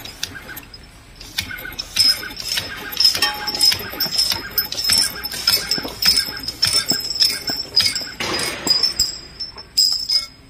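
Horizontal wrap-around ampoule labeling machine running: sharp clicks and clinks about twice a second as glass ampoules are fed through and labeled, over a steady high whine. A short hiss comes near the end.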